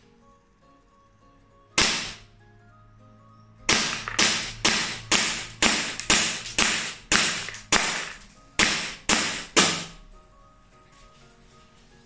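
Armorer Works HX2003 Hi-Capa gas blowback airsoft pistol firing. One shot comes about two seconds in, then a rapid string of about a dozen shots at roughly two a second, emptying the magazine. Each shot is a sharp crack with a short echo.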